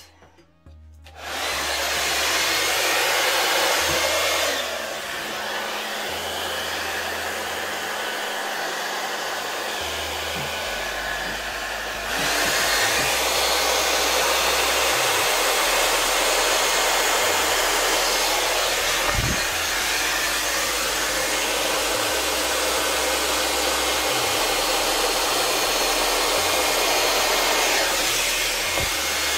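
Handheld hair dryer switched on about a second in and blowing steadily across wet acrylic pour paint, spreading it into a bloom. Its rush weakens and dulls for several seconds, then comes back up to full strength.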